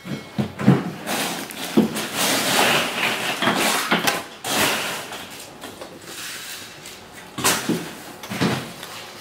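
Yellow larvae sizzling as they cook in a metal wok, with a metal spatula stirring them, scraping and knocking against the pan. The sizzle is strongest in the first half, and the spatula knocks come about half a second in, near two seconds and twice near the end.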